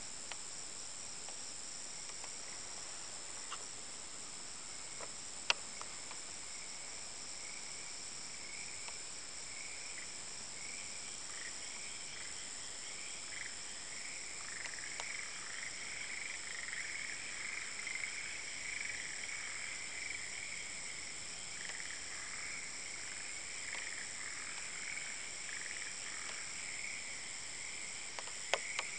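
A chorus of frogs calling, thickening from about a third of the way in, over a steady high-pitched insect drone. A single sharp click about five seconds in.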